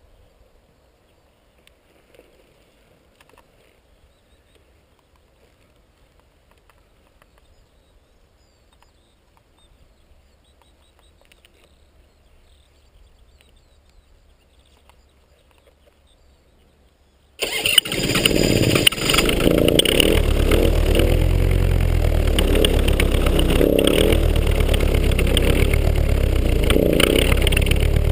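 Quiet at first, with only faint small rustles; about two-thirds of the way in a paramotor engine starts suddenly, stumbles for a second or two, then runs loud and steady.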